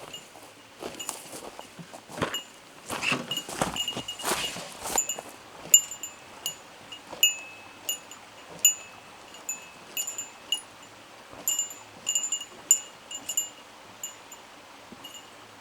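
Handling and rustling at first, then a long irregular series of light metallic clinks, each ringing briefly at the same pitch, like small metal pieces knocking together.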